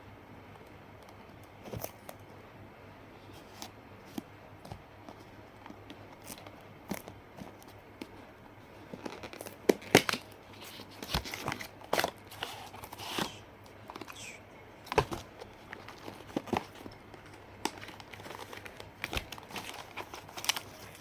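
Packaging being torn open and crinkled by hand during a phone unboxing: scattered crackles and rips, sparse at first and busiest in the middle stretch.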